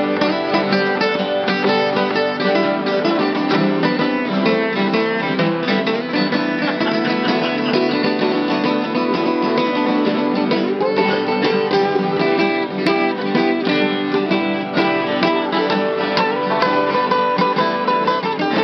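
Informal acoustic jam: several acoustic guitars strumming and picking together with other plucked string instruments. The playing is steady and unbroken.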